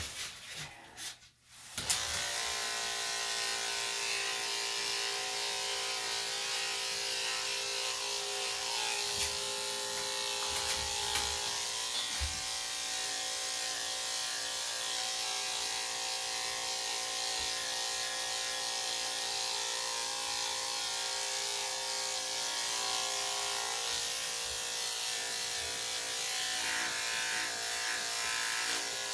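Electric dog grooming clippers switched on about two seconds in, then running with a steady hum as they clip the dog's coat.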